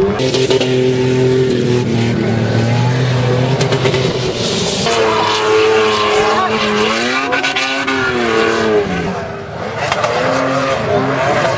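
Toyota Land Cruiser 4x4 engines revving hard as they power across loose dune sand. The engine note holds steady at first, changes about five seconds in, then rises and falls repeatedly as the throttle is worked.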